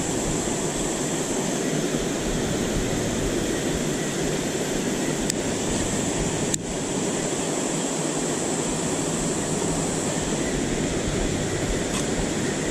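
Shallow river water rushing steadily over rocks and riffles close by, with a faint click or two about halfway through.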